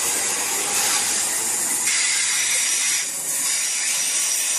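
Class 323 electric multiple unit running along the platform and away, a steady hiss of the train on the rails, easing slightly about three seconds in.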